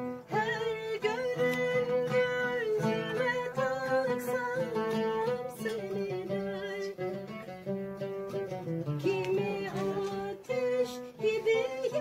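Oud being plucked, accompanying a woman's singing voice that carries a slow, wavering melody.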